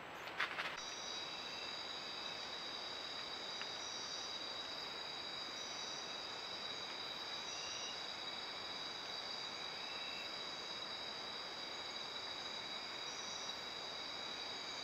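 Night chorus of insects trilling steadily in several high pitches, with short chirps repeating every second or two over it. A short clatter of clicks comes just under a second in.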